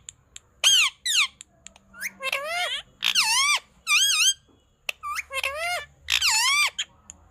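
Pet parrot vocalizing: a string of about seven short, high-pitched squeaky calls, each swooping down and back up in pitch, with short pauses between them.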